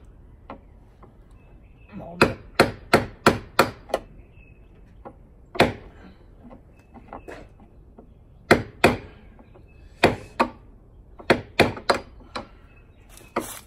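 Hammer blows on a truck door's hinge pin, struck to drive out a stubborn old pin: sharp metallic strikes in quick runs of several, with short pauses between the runs.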